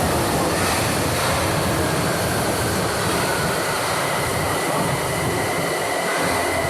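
São Paulo Line 2 metro train running through the station, a steady rumble with wheel and rail noise; a steady high whine comes in near the end.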